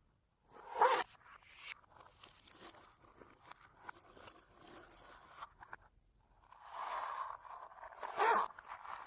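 Slime being worked by hand, with irregular crackling and scraping noises and two louder surges, about a second in and near the end.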